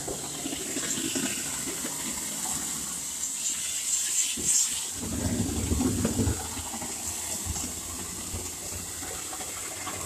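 Shotcrete being sprayed from a hose nozzle with compressed air: a steady rushing hiss of air and wet concrete hitting a rebar-and-wire form. It gets heavier and lower about halfway through.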